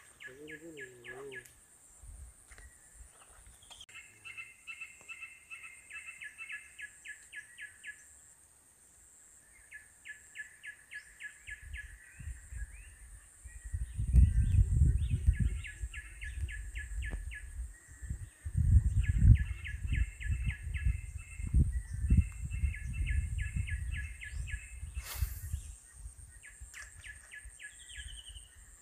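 A bird in the background calls in repeated trains of rapid, evenly spaced chirps, each lasting a few seconds. Through the middle, louder low thumps and rumbling come from the phone being handled and pried on the work mat. A faint, steady high-pitched whine runs underneath.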